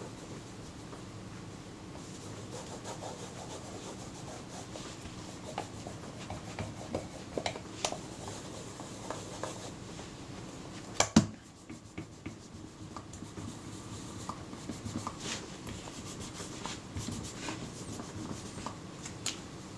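Terry cloth rubbing black renovating polish into the leather covering of a Kodak Retina II camera, a continuous scrubbing with small scattered clicks. About halfway through there is one sharp knock, the loudest sound.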